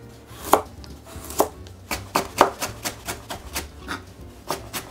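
Chef's knife julienning a carrot on a wooden cutting board: sharp knocks of the blade hitting the board, two spaced strokes, then a quicker run of about four a second from about two seconds in.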